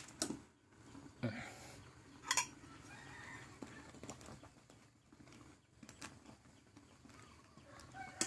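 Metal tongs clinking a few times against the metal inner pot of an electric rice cooker while stirring noodles, sharpest in the first couple of seconds, with chickens clucking in the background.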